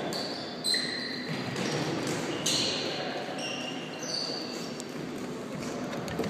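Floorball play in an echoing sports hall: sneakers squeaking on the court floor in short high squeaks, and plastic sticks clacking against the ball and each other, the sharpest clack about a second in.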